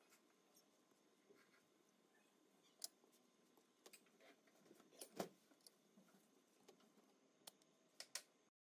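Quiet kitchen room tone with a few sharp clicks and taps of a utensil against a nonstick frying pan as a crepe is rolled and lifted out; the loudest tap comes about five seconds in. The sound cuts to silence near the end.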